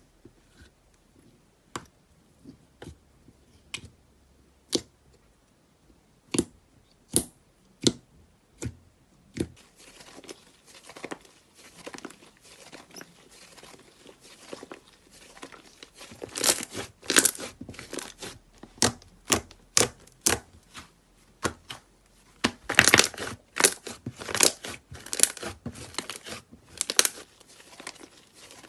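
Slime being squeezed and worked by hand close to the microphone: scattered sharp pops and clicks at first, then from about ten seconds in a dense crackling, loudest in two spells near the middle and toward the end.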